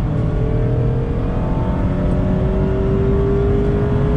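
The 2019 Mazda MX-5 Miata's 2.0-litre inline-four, heard inside the cabin, pulls hard under acceleration with its note climbing. The pitch steps down about two seconds in, then climbs again, over steady road and tyre noise.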